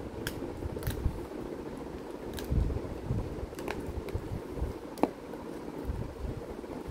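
Puppy eating chicken off a plate: a handful of short, sharp clicks from its mouth and teeth, the sharpest about five seconds in, over a steady low hum.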